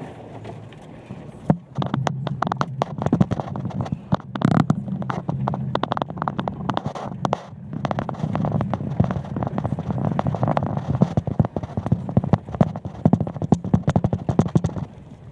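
Jeep driving on a muddy dirt road, heard from inside the cab: a steady low engine and drivetrain drone under a dense, irregular clatter of mud and grit thrown up by the tyres striking the body and wheel wells, which starts about one and a half seconds in.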